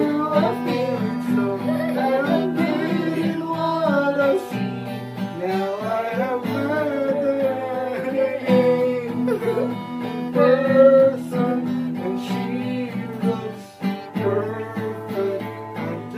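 Acoustic guitar strummed in steady chords while a voice sings a melody over it. The playing and singing dip briefly near the end, then carry on.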